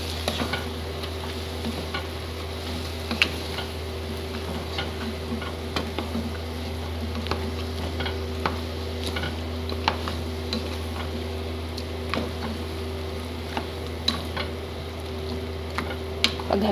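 Wooden spatula stirring camel meat and chopped tomatoes in a stone-coated frying pan, with frequent short knocks and scrapes against the pan over a steady sizzle. A steady low hum runs underneath.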